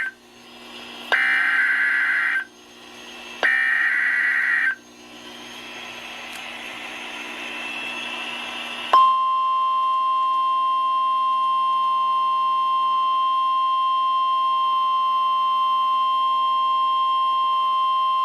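NOAA Weather Radio SAME (EAS) header: two buzzy bursts of warbling data tones, each about a second and a half long, follow the tail of a first burst, then a few seconds of hiss. About nine seconds in, the steady single-pitch 1050 Hz warning alarm tone starts, announcing a new warning.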